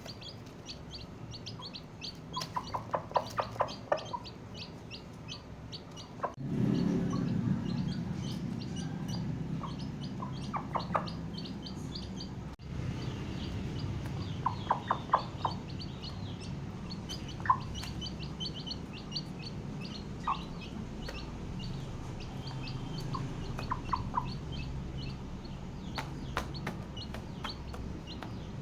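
Newly hatched chicks peeping in many short, high chirps, with their mother hen clucking in a few quick runs of low clucks. A low steady hum comes in about six seconds in.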